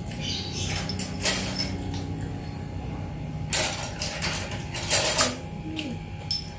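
Eating by hand from a paper-and-banana-leaf food wrap: a few short crackling rustles a second or two apart, over a steady low hum.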